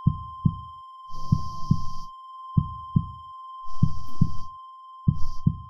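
Heartbeat sound effect: paired low thumps, about one pair every second and a quarter, under a steady high-pitched ringing tone, with a few short breathy hisses.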